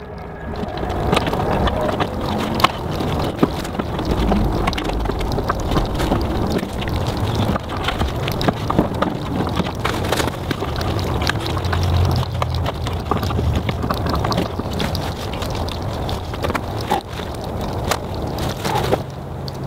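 Wind buffeting the microphone, a steady rushing noise with a low rumble, with many small clicks and knocks scattered through it.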